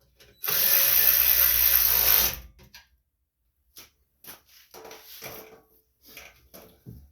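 A power driver with a socket runs for about two seconds, tightening down the tank-bracket nuts. Several light metallic clicks and clanks follow as parts and tools are handled.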